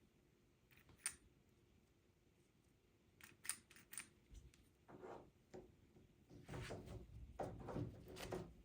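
Door latch and knob hardware being handled and fitted. Sharp light clicks, a quick run of clicks past three seconds in, then rattling and scraping from about five seconds in.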